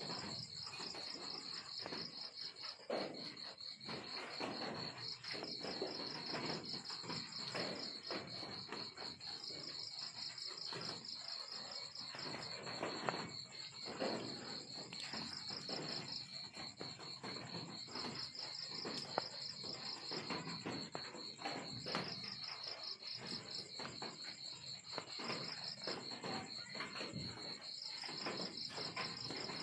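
Crickets chirping steadily in a continuous pulsed high trill, with irregular soft clicks and rustles underneath.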